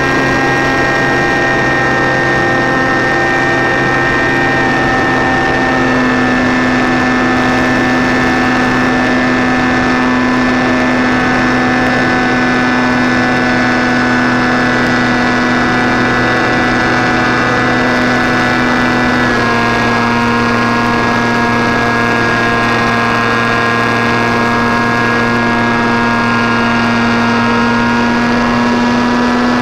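Motor and propeller of an RC model Cessna 337 Skymaster, heard from its onboard camera in flight: a loud, steady droning whine that drops slightly in pitch twice as the throttle is eased back.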